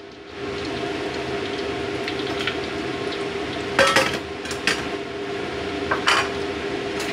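Clinks and clatters of kitchen utensils and dishes, a cluster about four seconds in and another about six seconds in, over a steady hiss and hum from the stove area.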